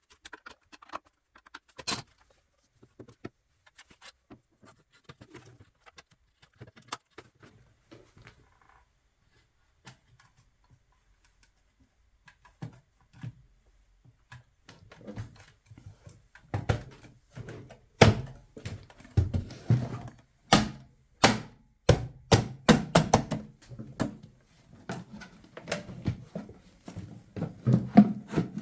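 Knocks, clicks and thunks of a home theatre unit's casing and parts being handled and put back together: scattered light taps at first, then frequent knocks from about halfway through.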